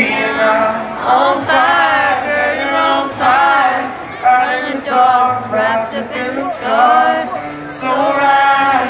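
Live concert music: a male singer singing with guitar accompaniment through a large venue's sound system, heard from the crowd. The sung phrases come in short runs, about one a second.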